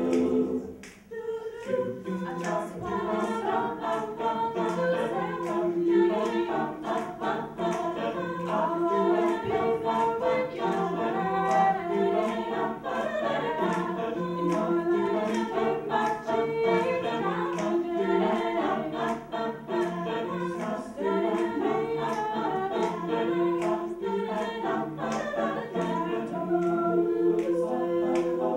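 Collegiate a cappella group singing: a woman's lead voice over mixed voices singing the backing, with a steady ticking beat running underneath.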